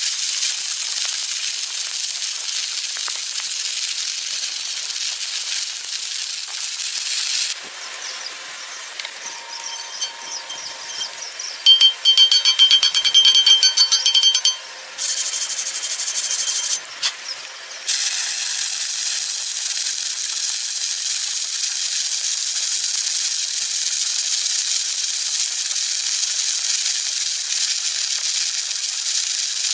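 Electric arc welding on steel plates: a steady high-pitched crackling hiss from the arc. It stops about 7 seconds in and starts again about ten seconds later. In the gap there is a loud high-pitched tone lasting about two and a half seconds.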